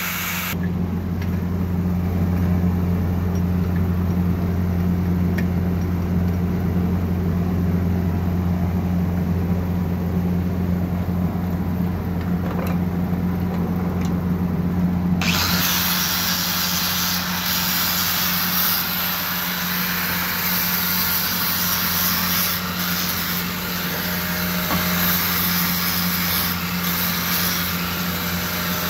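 Handheld angle grinder running with a steady motor hum. About halfway through, a harsher hiss joins, as the abrasive disc grinds the friction material of brake pads.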